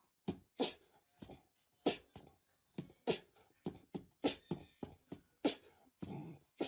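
Small dog giving a quick, irregular series of short huffs and muffled half-barks, about two a second, with a slightly longer low sound just after six seconds in.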